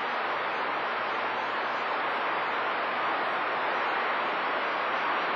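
CB radio receiver hiss on an open channel between transmissions: steady static with no signal coming through.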